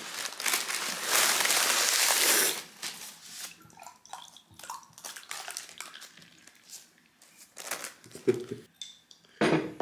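Beer poured from a swing-top bottle into a glass: a loud rush of pouring for the first two and a half seconds, then quieter fizzing and trickling with light clinks of glass, and a knock near the end.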